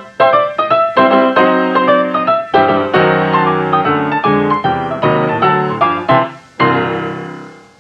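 Background piano music playing quick notes, fading out near the end.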